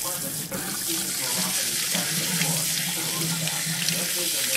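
Water running steadily from a kitchen sink tap into the basin during a dog's bath.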